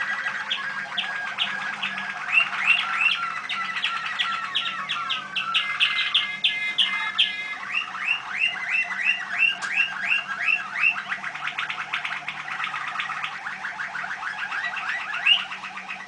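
Caged domestic canary song: a continuous run of fast repeated notes and trills, the phrases changing every second or two, stopping shortly before the end.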